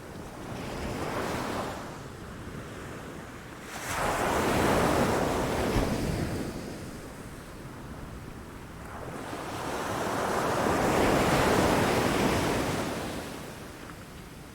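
Sea waves breaking against rocks and the shore: a small swell of surf about a second in, then two big waves that each rise to a rushing crash and fade away, the first about four seconds in and the second about ten seconds in.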